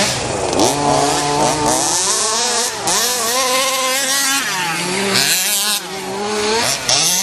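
Several small two-stroke petrol engines of 1/5-scale off-road RC cars revving up and down together, their pitches overlapping. One rises and falls in pitch as a car passes close by, about halfway through.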